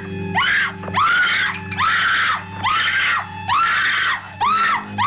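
A woman screaming in terror, a string of short screams in quick succession, each rising sharply and holding before breaking off, over a low steady drone.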